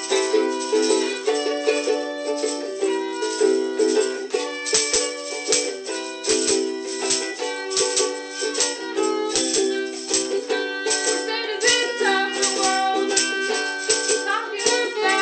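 Upbeat music of strummed chords with a shaker. The shaker comes in strongly about four seconds in, keeping a steady beat of about two strokes a second. A wavering melody line joins near the end.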